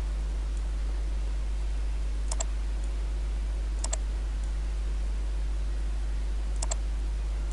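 Computer mouse button clicking three times, each a quick press-and-release pair, a second or two apart, over a steady low electrical hum.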